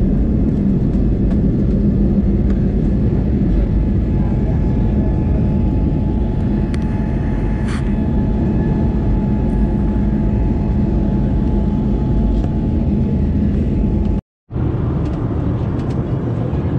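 Jet airliner's turbofan engines at takeoff power, heard inside the cabin through the takeoff roll and climb-out as a loud steady roar with a held low drone. A brief dropout a little before the end marks a cut in the recording, after which steady cabin noise goes on.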